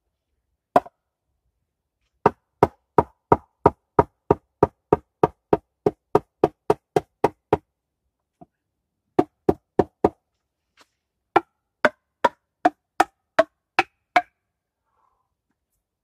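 Hammering on wood with the back of a hatchet, knocking the round logs of a log bench seat into place. The knocks are sharp and evenly spaced: one about a second in, a long run of steady blows about three a second, then after a short pause two shorter runs.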